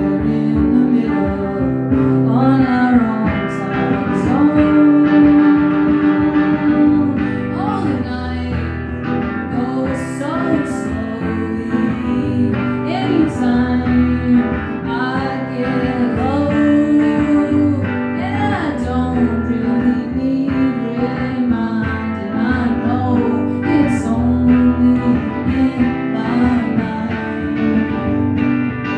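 Live song music after the lyrics: an instrumental guitar passage with held chords and a melody that slides and bends between notes.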